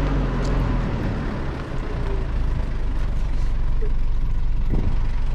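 Vehicle engine running with a low rumble and road noise as it moves slowly along a dirt track; the engine note eases off in the first second or two.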